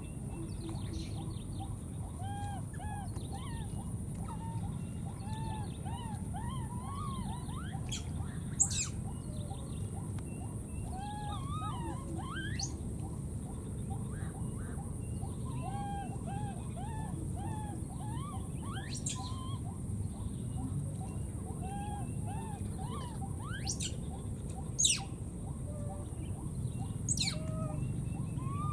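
Baby macaque giving a long run of short, thin whimpering coos, each rising and falling in pitch, with a few sharp high squeaks, two of them loudest, about a third of the way in and near the end.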